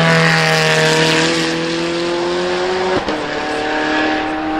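Zenvo TSR-S's twin-supercharged V8 accelerating past and pulling away, its note rising steadily, then dropping sharply at an upshift about three seconds in.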